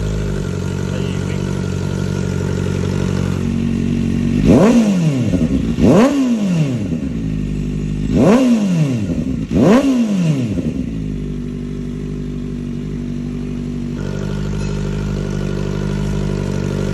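Kawasaki ZX-4RR's 399 cc inline-four idling, then blipped hard four times, each rev shooting up in pitch and falling straight back to idle, before settling into a steady idle again.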